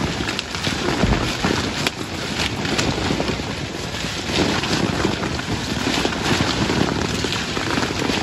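Coffee cherries being stripped by hand from the branches: leaves and twigs rustling, with many small ticks of cherries dropping onto a tarp spread beneath the bushes.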